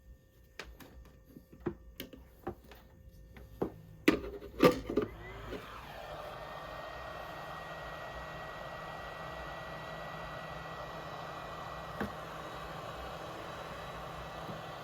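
A series of sharp clicks and knocks from handling tools and parts, then about five seconds in an electric heat gun starts blowing and runs steadily with a faint whine, heating heat-shrink tubing on the battery wiring.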